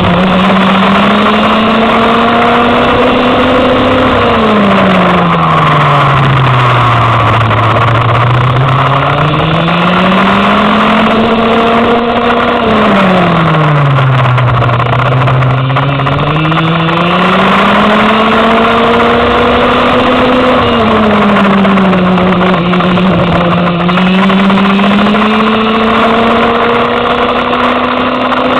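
Go-kart engine heard onboard during a lap. Its pitch climbs as the kart accelerates and falls sharply as it slows, with long drops about 4 s and 12 s in and shorter dips later.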